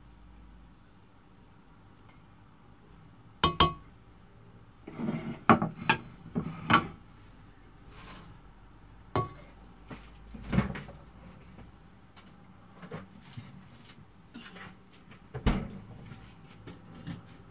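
A serving spatula scraping and knocking against a stainless steel pan as noodles are dished out, with irregular clinks and a few sharper knocks that ring briefly.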